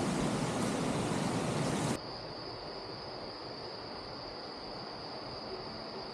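A loud rushing noise cuts off abruptly about two seconds in. It leaves quieter outdoor ambience with a steady high insect drone, like crickets.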